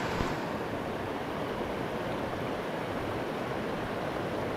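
Steady rush of a small rocky stream, water running over stones and shallow riffles.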